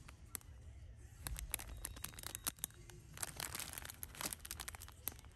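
Faint crinkling and crackling of a clear plastic bag holding a hay cake as it is handled, in irregular clusters of small crackles.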